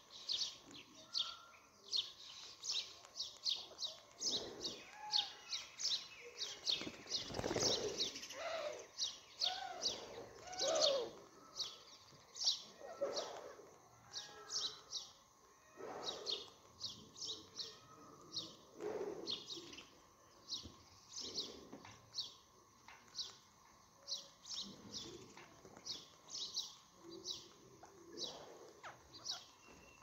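Birds chirping in a rapid, steady stream of short, high chirps, with a few lower, curving call notes mixed in between about four and eleven seconds in.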